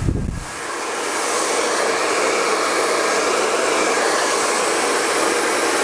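Handheld electric hair dryer running, a steady rush of fan and blowing air. A low rumble of air buffeting the microphone dies away about half a second in.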